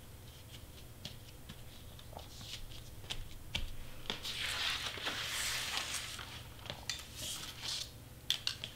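Hands handling large sheets of cardstock on a cutting mat: scattered light taps and clicks, a longer rustling slide of the paper across the mat about halfway through, and a few sharp clicks near the end.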